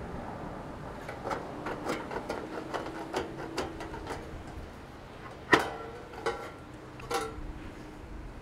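Tin snips cutting through a steel barge capping: a run of crisp snips at about three a second. Then the sheet-metal capping clanks loudly and rings, followed by two lighter clanks as it is handled.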